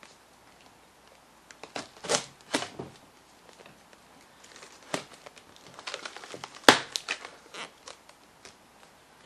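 Cardboard shipping box being handled while its packing tape is cut and picked at: irregular scrapes, crinkles and knocks of tape and cardboard, the sharpest a crack about two-thirds of the way through.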